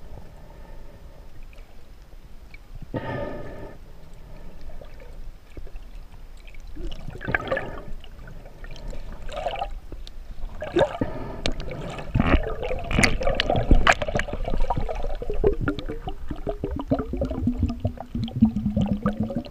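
Water gurgling and sloshing around a camera held underwater, with a run of sharp clicks and knocks partway through. There are a few short squeaky pitched sounds early on and a low steady drone that sinks a little in pitch near the end.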